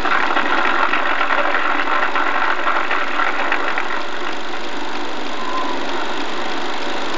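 Film projector running with a steady mechanical clatter from its film transport, a little louder in the first few seconds.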